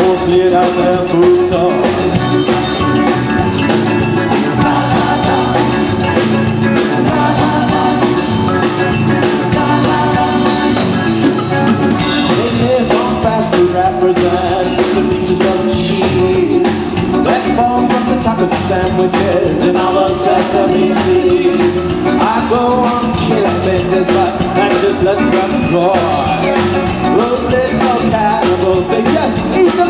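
Live band playing an upbeat song on a drum kit, electric guitar and bass guitar.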